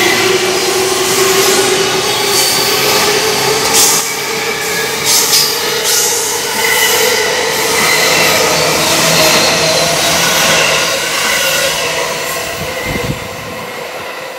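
Electric commuter train in Tokaido Line colours pulling out along the platform. Its motor whine rises slowly in pitch as it accelerates, over running noise with a few sharp wheel clacks, and it fades near the end as the last car clears.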